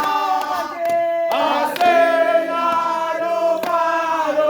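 A group of voices singing a chant together in harmony, holding long chords, with a few sharp claps in between.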